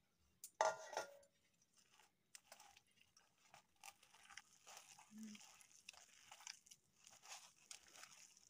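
Hand squeezing and mixing gram-flour pakora batter with moringa flowers and chopped onion in a steel bowl: repeated soft crunching, rubbing strokes, with a sharp clink about half a second in.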